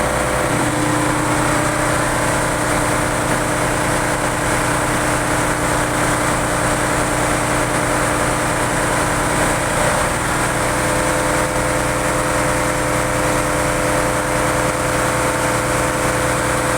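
Ship's engine-room machinery running steadily, a loud constant drone with a change in its hum about ten seconds in.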